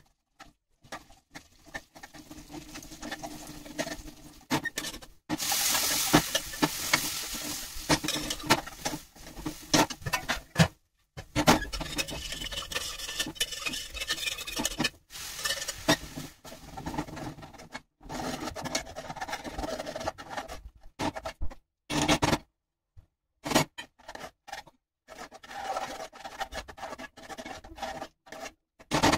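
Cooking in a frying pan: a spoon scraping and stirring through the pan, over the crackle and sizzle of spices and dal frying in oil. The sound cuts off abruptly several times between short clips, and it is at its hissiest a few seconds in.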